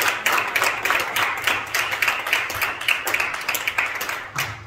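Congregation applauding, a dense patter of hand claps that slowly dies down and thins out near the end.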